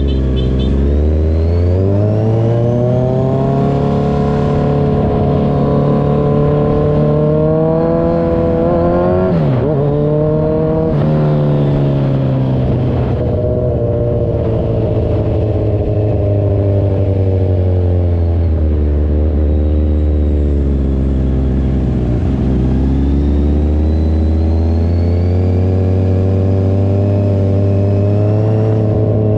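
Kawasaki Z1000 Sugomi's inline-four running through an Avionic V4 aftermarket exhaust, its engine speed climbing and falling in slow swells. There is a sharp drop and recovery about a third of the way through and a deeper dip about three quarters of the way in.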